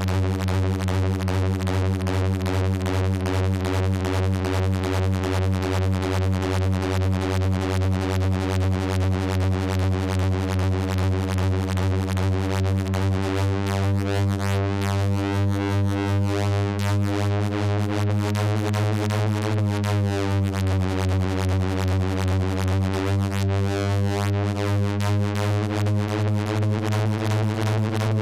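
Analog synthesizer drone from a recreation of the Wave Motion Gun sound effect: one deep tone with a rapid, even pulse. Partway through, and again near the end, a sweeping, phaser-like shimmer moves through its upper overtones.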